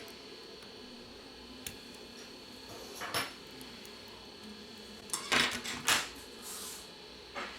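Small repair tools clicking and tapping against the inside of a Samsung A30s smartphone while its flex connectors are unclipped. A handful of sharp, light clinks are spread over several seconds, with the loudest cluster a little past the middle.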